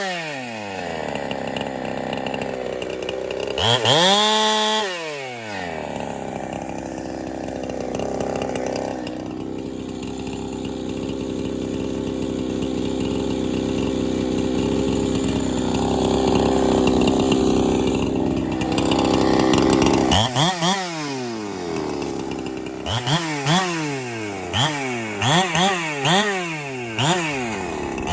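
Ported Holtzfforma 372 two-stroke chainsaw, still being broken in, revving up and down, then running steadily under load through a long cut of about fifteen seconds. Near the end it is revved up and down several times in quick succession.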